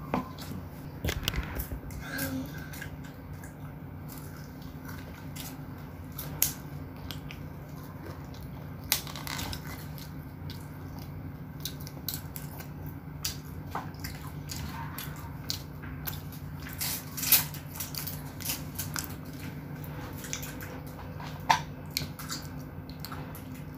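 Close-up eating sounds of a child chewing and crunching French fries dipped in sauce, with many scattered sharp clicks and crackles. A steady low hum runs underneath.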